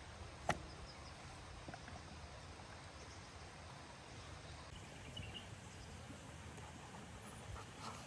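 Quiet outdoor background noise with one sharp click about half a second in and a few faint, short high chirps later on.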